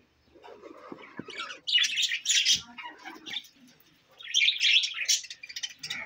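A flock of budgerigars chattering and chirping, with two loud bursts of busy chirps, about two seconds in and again about four and a half seconds in.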